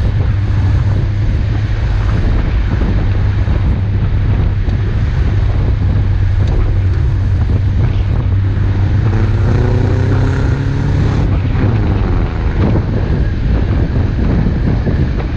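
An off-road 4x4 being driven through deep snow, heard from inside: a steady low engine drone under rough tyre and snow noise. About nine seconds in, a whine falls in pitch for a couple of seconds.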